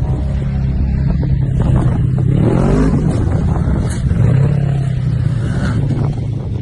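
Off-road vehicle engine running under throttle. It revs up, rising in pitch about two to three seconds in, then drops back to a steadier drone.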